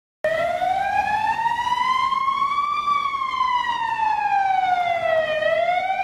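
Goal siren wailing, signalling a goal. It starts suddenly, slowly rises in pitch, slowly falls, and begins rising again near the end.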